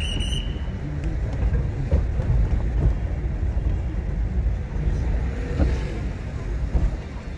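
A car driving along: a steady low rumble of engine and road noise.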